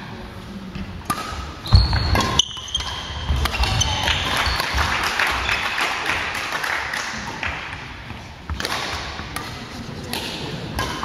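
Badminton rally: a few sharp racket strikes on the shuttlecock and squeaks of shoes on the wooden court floor, all in the first few seconds and echoing in a large hall, followed by the hall's background din once play stops.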